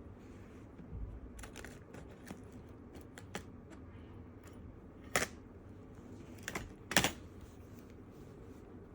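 Ear pick scraping and clicking inside an ear canal during ear cleaning: a scatter of small dry clicks and scratches, with two louder scrapes about five and seven seconds in.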